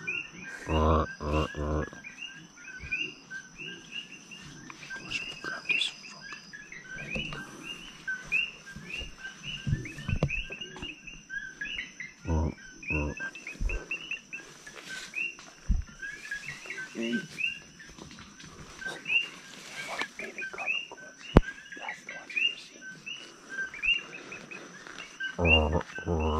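Evening forest chorus of many short, high chirping calls repeating throughout. A steady thin high tone runs beneath them. Short, deep, pitched animal calls come in quick runs of three or four, about a second in, again around the middle and near the end.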